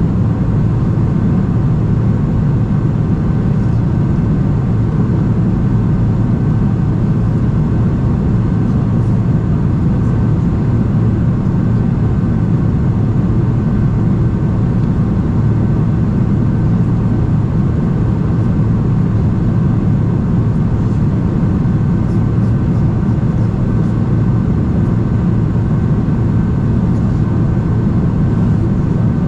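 Steady cabin noise of a Boeing 747-400 in flight, heard from a window seat inside the cabin: the even rush of its four turbofan engines and the airflow, with a steady low hum and a faint high tone running through it.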